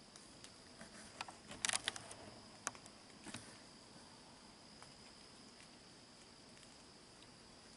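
Faint, steady high-pitched trill of crickets, with a short run of sharp clicks and rustles between about one and three and a half seconds in.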